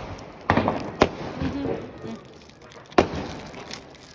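Diwali firecrackers going off: three sharp bangs, about half a second in, a second in and three seconds in.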